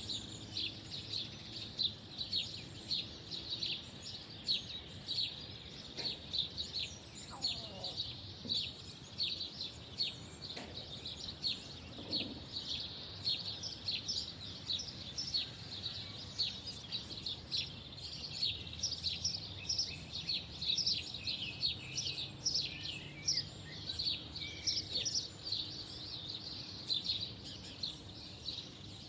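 Many small birds chirping continuously, a dense run of short, quick chirps, over a faint steady low background hum.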